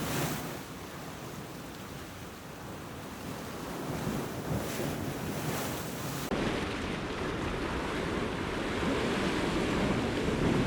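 Sea surf washing around the rocks, with wind buffeting the microphone. About six seconds in the sound changes abruptly to a louder, lower rush.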